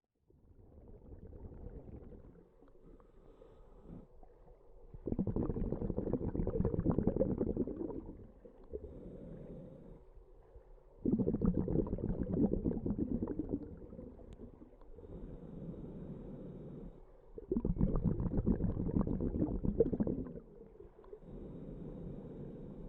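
Scuba diver's breathing through a regulator, heard underwater: quieter inhales alternate with loud bubbling exhales. There are three exhales, each about three seconds long and about six seconds apart.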